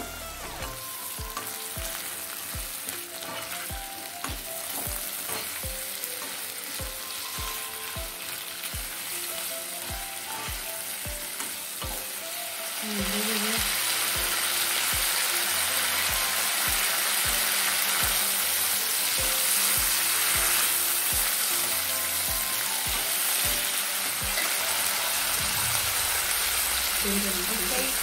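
Prawns frying in oil in a nonstick pan, a steady sizzle that gets clearly louder about halfway through, with some stirring. Background music with a regular low beat runs underneath.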